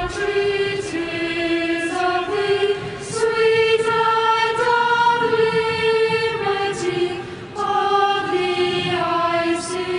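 A choir singing slow, long-held notes.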